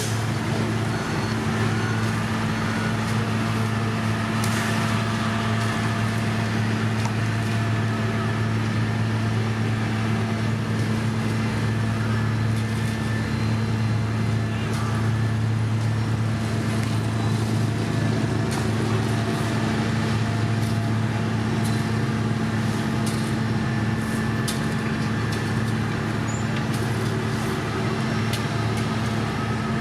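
Heavy road-construction machinery engine running at a steady speed, a constant low drone with faint scattered clicks and knocks above it.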